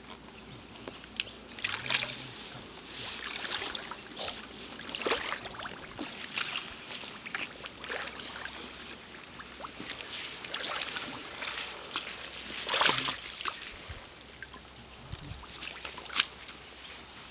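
Irregular splashing and sloshing of pond water in short bursts, the loudest at about two and thirteen seconds in, as koi are handled and netted out of a harvest pond.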